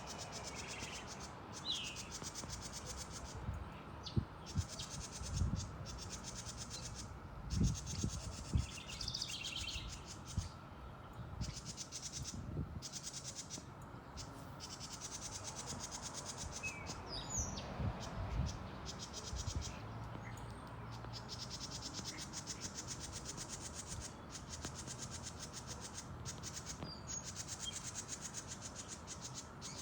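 Backyard birds giving a few short, scattered chirps over a steady high hiss, with occasional low bumps.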